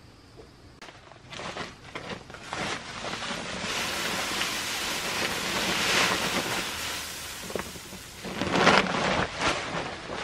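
Dry rice husks pouring in a stream onto a growing pile in a mesh-sided box: a rushing hiss that builds over the first few seconds, with a louder, heavier surge near the end.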